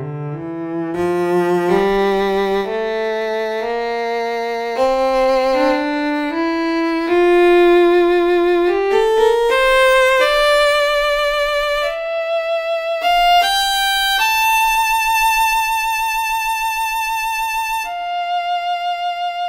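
Instrumental music with bowed-string tones, like violin and cello: a melody of held notes that climbs step by step from low to higher pitches and settles on one long held note near the end.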